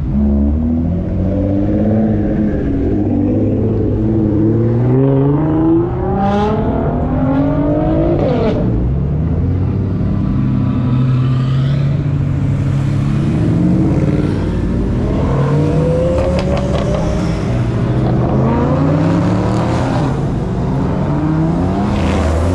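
Sports car engines accelerating hard, their pitch climbing again and again as they rev up through the gears. One engine drops sharply in pitch about eight seconds in as it passes by.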